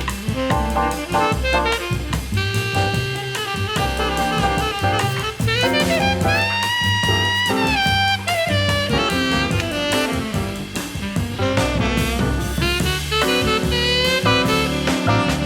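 Jazzy background music with a saxophone or brass lead over drums and bass.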